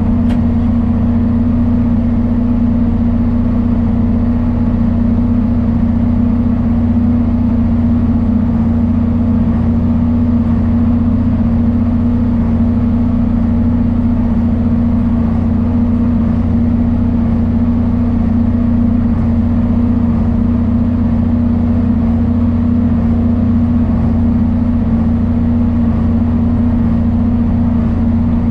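John Deere 4430 tractor's six-cylinder turbocharged diesel running steadily at constant speed, with a strong steady hum.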